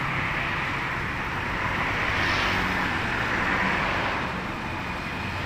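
Steady rush of passing road traffic, swelling as vehicles go by about two seconds in and again a little later.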